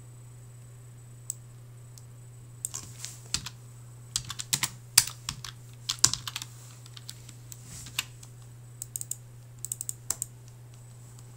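Computer keyboard typing, irregular runs of keystrokes from a few seconds in until shortly before the end, over a steady low hum.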